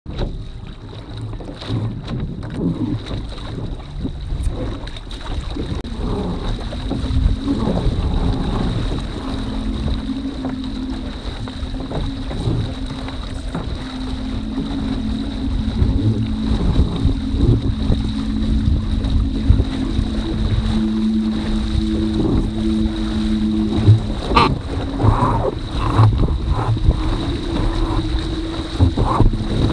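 Wind buffeting the microphone on a foiling dinghy under sail, with water rushing past the hull. A steady low hum comes in about six seconds in and steps up in pitch later on.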